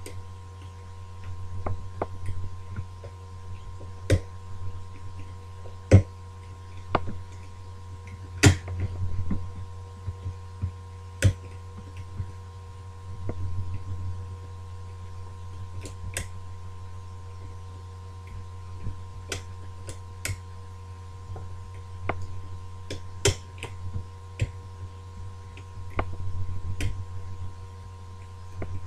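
Irregular small clicks and taps of lock-picking tools working the levers inside a British Standard ERA multi-slot lever lock, over a steady low hum.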